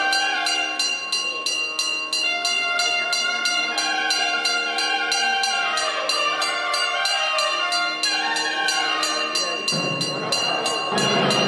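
Temple bell ringing in quick, even strokes, about two or three a second, over a wavering pitched melody. Near the end a dense rushing noise takes over.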